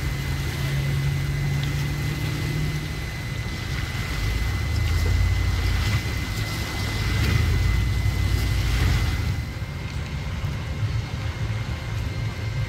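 Low engine rumble that grows louder for a few seconds midway and then eases off, with waves splashing over a concrete ramp.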